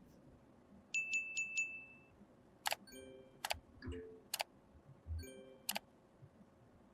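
Small metal parts clinking and tapping together: four quick taps about a second in leave a clear ringing note, followed by several separate clinks that each ring briefly at a different pitch.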